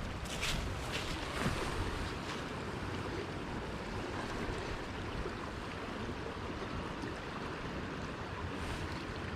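Steady rushing of flowing river water, with a couple of short crunches in the first two seconds.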